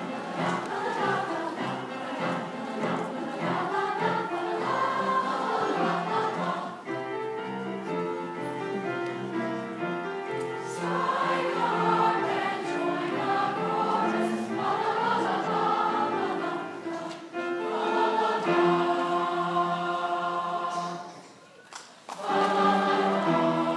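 Mixed choir of male and female voices singing held notes together, breaking off briefly near the end and then coming back in.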